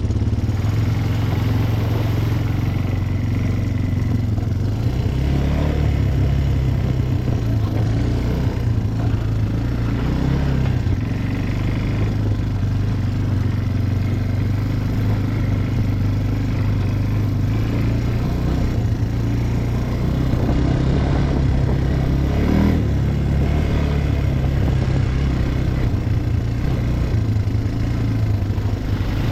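ATV engine running at a steady, fairly low speed, its note shifting a little now and then.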